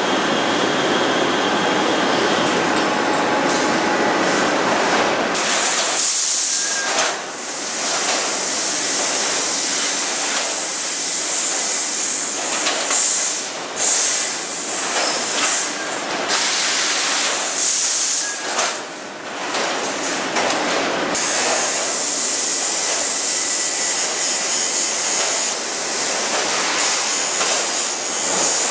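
Steel rolling-mill noise: heavy machinery running loudly with metal rattling and squealing, and a strong high hiss that comes and goes, longest over the last third.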